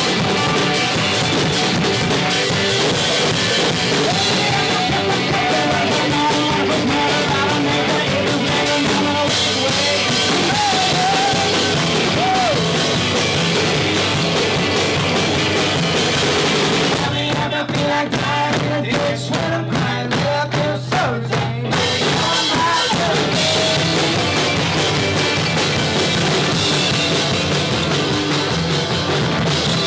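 Live bluegrass-rock band playing loudly, with electric guitars and drums. About 17 seconds in the band drops to a sparser stretch of a held low note and separate hits, then the full band comes back in about 22 seconds in.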